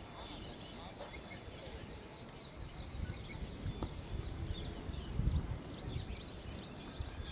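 Outdoor ambience: small birds chirping over and over in the background, with low gusts of wind rumbling on the microphone, stronger in the second half.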